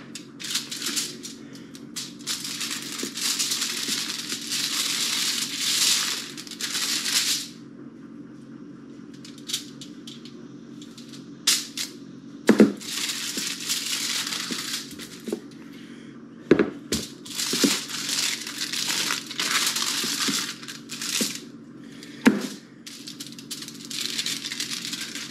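Aluminium foil crinkling and rustling as hands work at a foil-lined pan, in several long stretches, with a few sharp knocks and a steady low hum underneath.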